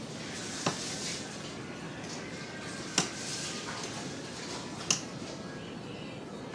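Small metal parts clinking as they are handled, three sharp clicks about two seconds apart over a steady background hiss.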